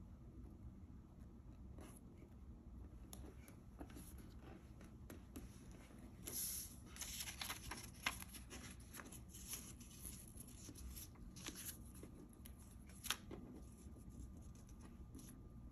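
Quiet rustling and crinkling of folded paper as hands fold a narrow paper strip and press it onto a paper kimono body, busiest from about six seconds in, with two sharp crinkles about five seconds apart.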